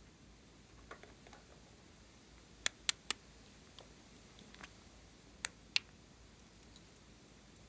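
Hollow peach-shaped plastic containers being handled and knocked together: three sharp plastic clicks in quick succession just under three seconds in, and two more about five and a half seconds in, with a few fainter taps between.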